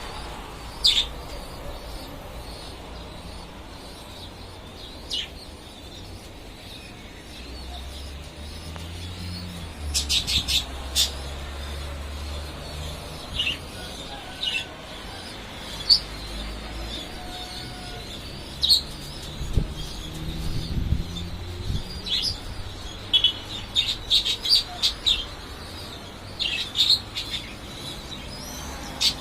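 Birds chirping in short, high calls scattered throughout, coming more often towards the end, over a low rumble of wind on the microphone that swells at times.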